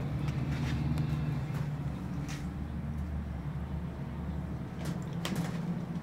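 Steady low motor hum, with a few short light clicks over it.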